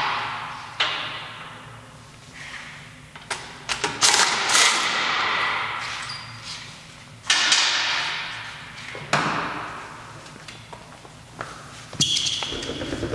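Rear car wheel being taken off a lifted car: several separate knocks and thumps, each ringing on for a second or two in a large hall.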